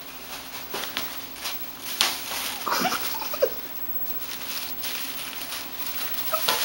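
A cat pouncing on and shoving a plastic-wrapped four-pack of toilet paper across a tile floor: irregular scuffs, knocks and crinkles of the wrapper, with paw patter. A few short high-pitched squeaks come about halfway through.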